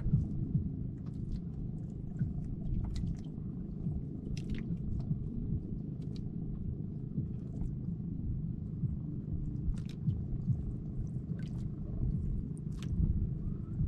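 Wind rumbling on the microphone and water lapping against a small outrigger fishing boat, with scattered light clicks and ticks.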